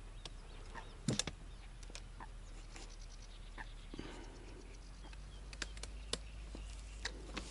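Faint scattered clicks and light taps over a quiet outdoor background, with a brief run of rapid ticks about three seconds in.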